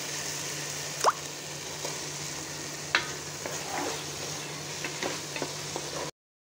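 Vegetable masala frying and sizzling in a nonstick pan while a wooden spatula stirs and scrapes through it, with a few sharp knocks of the spatula against the pan. The sound cuts off abruptly about six seconds in.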